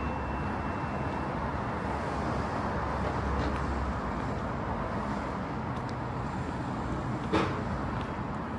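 DAF delivery lorry's diesel engine idling close by, a steady low rumble with street traffic noise. A single sharp clunk about seven seconds in.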